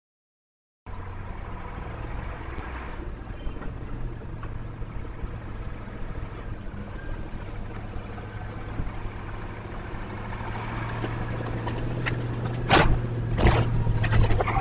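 Street traffic at an intersection: vehicles running and passing over a steady low hum, starting about a second in. Near the end come three loud sudden noises.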